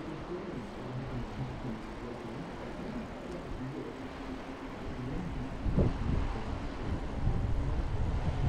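Wind rumbling and buffeting on the microphone of a moving bicycle, a low steady rush that turns louder and gustier about two-thirds of the way in.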